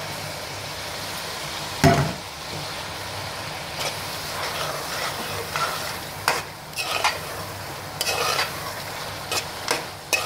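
Mutton pieces frying in masala in a metal pot, sizzling steadily, with one loud knock about two seconds in. From about four seconds on, a metal spoon stirs and scrapes against the pot in irregular strokes.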